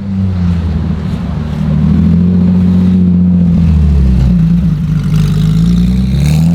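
Sports car engine running at low revs with a deep, steady note. Near the end the pitch starts to climb as it is revved.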